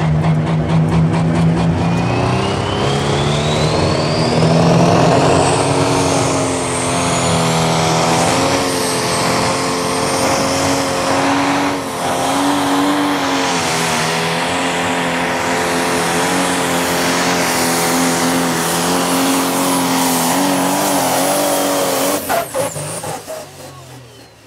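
Pro Stock pulling tractor's turbocharged diesel engine running flat out under load as it pulls the sled, with a high whistle rising over the first several seconds. The engine sound cuts off suddenly about 22 seconds in.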